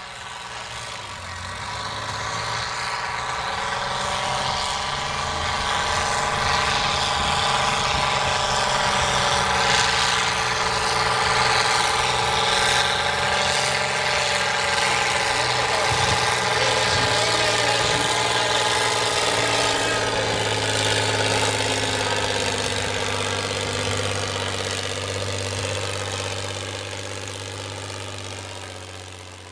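Farm tractor's diesel engine working hard under load as it drags a weight-transfer pulling sled, a steady engine drone. It grows louder over the first few seconds and fades toward the end.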